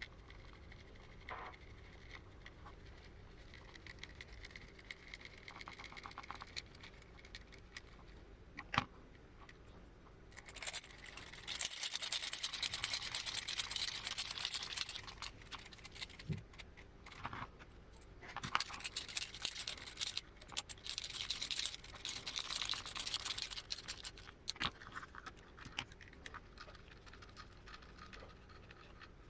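Small clicks and taps of plastic and metal RC transmission parts being handled and fitted together by hand, with two stretches of dense scratchy rustling, one starting about ten seconds in and another around eighteen seconds.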